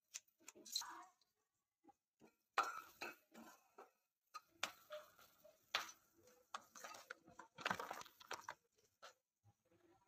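Fresh green chillies snapped and broken by hand, a series of short crisp crunching snaps, with the pieces falling into a stainless steel kadhai.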